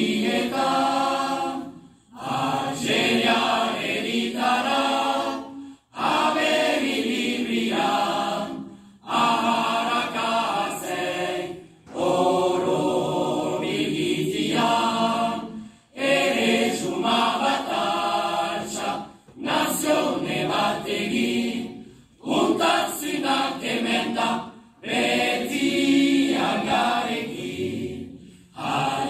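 A choir sings unaccompanied in Basque, a pastorale chorus. It comes in phrases of two to three seconds, each broken by a short pause for breath.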